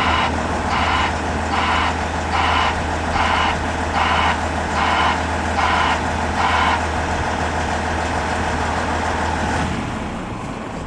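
Backup alarm of a reversing heavy vehicle beeping nine times, about one beep every 0.8 s, over the steady low hum of its diesel engine. The beeping stops about two-thirds of the way through, and the engine hum drops away near the end.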